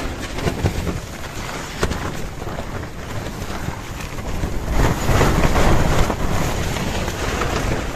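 Strong wind gusting and buffeting a camping tent, with heavy wind noise on the microphone; the gusts swell louder about five seconds in.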